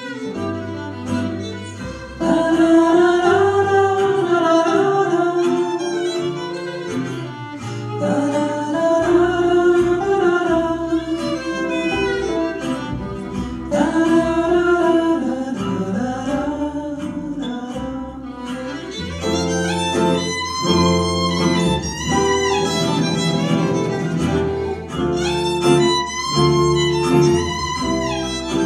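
Live acoustic quartet of violin, two acoustic guitars and double bass playing a slow ballad, the melody in long phrases over strummed guitar and bass. About two-thirds of the way through a faster, higher violin line takes over.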